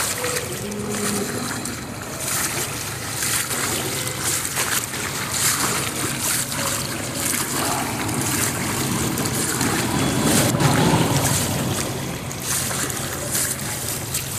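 Sloshing and splashing of someone wading through street floodwater, a steady wash of water noise broken by short splashes. A low rumble swells about ten seconds in.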